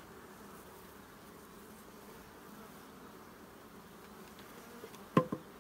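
Honey bees humming steadily over an open hive. About five seconds in, two sharp knocks in quick succession.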